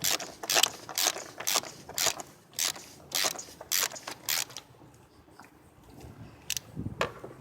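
Ratchet wrench clicking in a steady run of strokes, about two or three a second, stopping about four and a half seconds in, with a few single clicks near the end: a socket ratchet loosening the oil filter housing cap on a BMW E46 engine.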